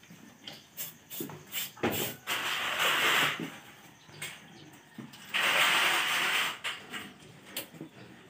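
Water spraying from a hose in two hissing bursts of about a second each, washing a scalded pig carcass, with small knocks and scrapes between the bursts.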